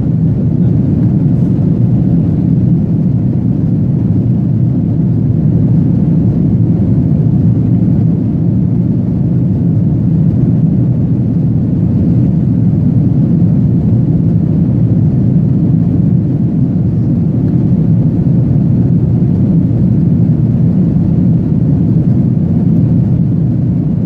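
Steady low cabin noise of a jet airliner in its climb after takeoff: engines and rushing airflow heard from a window seat inside the passenger cabin.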